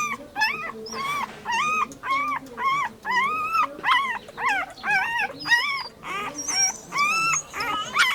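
Puppy whimpering in a rapid series of short, high-pitched cries, about two a second, each rising and then falling in pitch.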